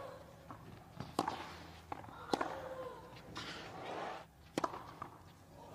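Tennis ball struck back and forth with rackets in a rally on a clay court: sharp pops, the louder ones about a second or more apart, with a player's grunt following one of the shots.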